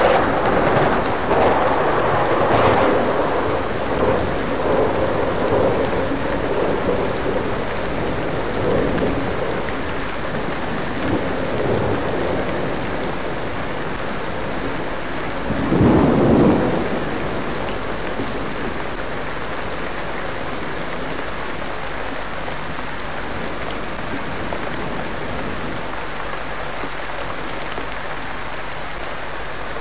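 Thunderstorm: steady heavy rain falling, with thunder rumbling in the first few seconds and one short loud clap of thunder about halfway through.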